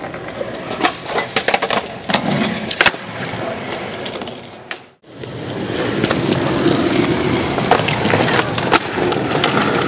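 Skateboard on concrete: a run of sharp clacks from the board striking the ground in the first three seconds. After a sudden break about halfway, steady wheel-rolling noise follows, with a few clicks.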